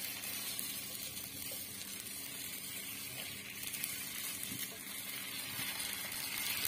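Omelette batter of beaten egg, onion and green chilli sizzling as it is poured onto a hot tawa and spreads out; a steady high hiss.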